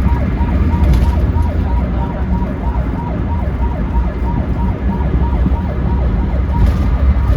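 Ambulance siren sounding a fast repeating yelp, about three falling sweeps a second, heard from inside the moving ambulance over a heavy low road and engine rumble.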